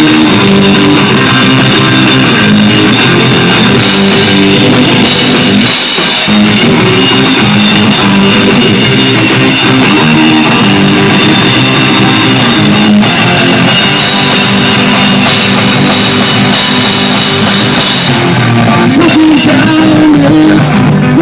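Rock band playing live, loud and dense: drum kit pounding under distorted guitars. Near the end a single held guitar note bends up and down above the band.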